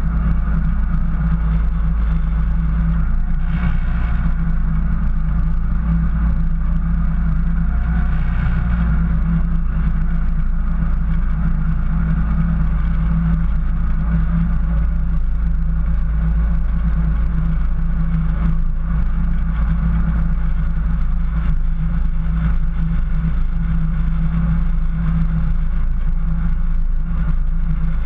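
Jeep 4x4 running steadily while driving through snow, a low constant engine and drivetrain drone.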